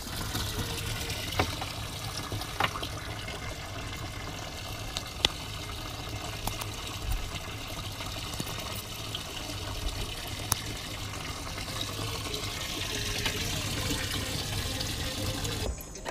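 Steady running, trickling water, with a few light knocks and clicks.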